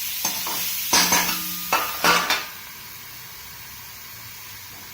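Chopped vegetables sizzling in oil in a pan while a spoon stirs them, knocking and scraping against the pan several times. About two and a half seconds in, the stirring stops and the sizzle drops to a quieter steady hiss.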